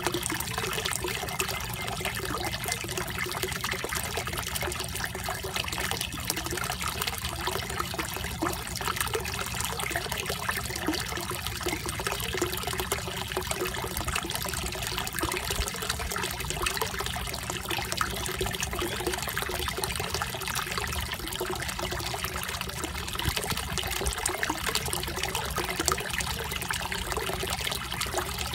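Steady trickle and splash of water running into a small koi pond.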